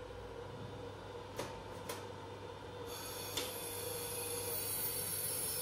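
Automatic steel-rule bending machine for cutting dies running: a steady hum, sharp clicks of its tooling about a second and a half and two seconds in and again near three and a half seconds, and a steady high hiss that sets in about three seconds in.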